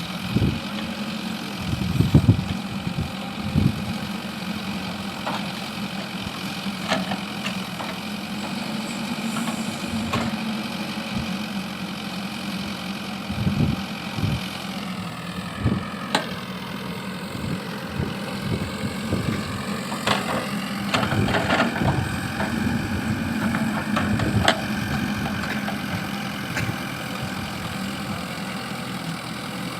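JCB backhoe loader's diesel engine running steadily. About halfway through its pitch sags and then recovers as it takes load, and short knocks and clanks come at scattered moments throughout.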